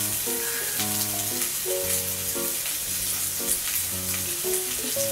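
Meat sizzling on an electric hot plate, a steady frying hiss, under background music playing a simple, gentle melody.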